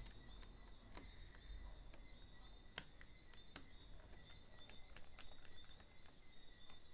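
Near silence, with a few faint light clicks and taps from laptop parts being handled as the battery is set back into the open laptop case.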